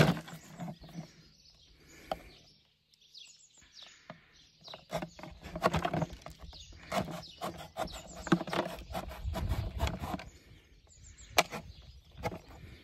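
A knife tip scraping, clicking and creaking against a hard plastic chlorine-tablet container as holes are cut into it. It is mostly quiet for the first few seconds, then comes in irregular clusters of clicks and scrapes, with one sharp click near the end.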